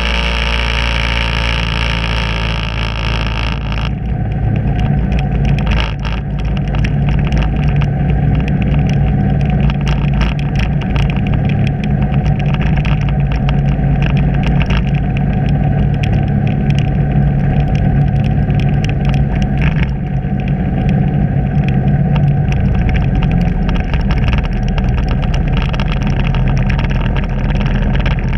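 Vehicle engine running steadily at low speed, a constant low drone. For the first four seconds a brighter layer of several steady tones rides over it, then stops abruptly.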